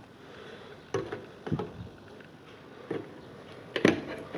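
A few light clicks and knocks, four or so spread over the few seconds, the loudest near the end: multimeter probe leads being handled and moved toward the power supply's terminals.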